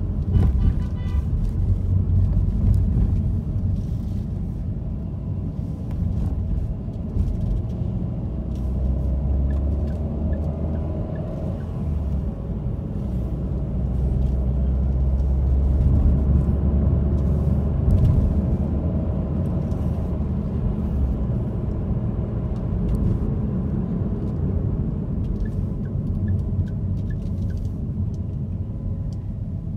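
Car road and engine noise heard from inside the cabin while driving in city traffic: a steady low rumble that swells for a stretch in the middle.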